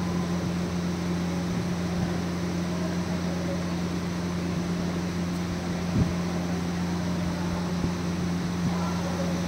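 Steady low machine hum throughout, with a short sharp sound about six seconds in as a wax strip is ripped off the cheek.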